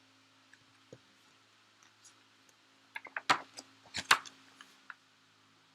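A few short, sharp clicks and taps in a quick cluster about three to four seconds in, the sound of something being handled close to the microphone.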